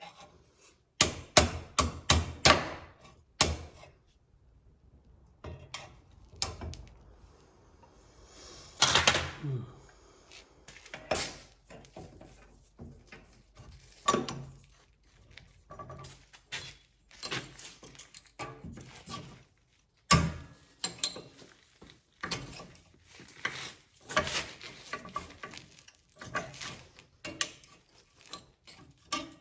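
Irregular knocks, clunks and clicks of parts being handled and fitted by hand, opening with a quick run of about six sharp taps and with one loud knock about two-thirds of the way through.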